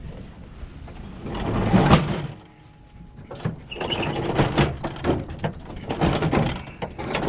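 A door sliding or rolling open with a rising scrape, then a run of knocks and rattles as things are moved about.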